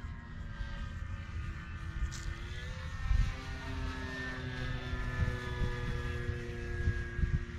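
Electric motor and propeller of a Dynam C-188 Air Tractor RC plane in flight, a steady whine that rises in pitch about three seconds in and then holds, with a low rumble underneath.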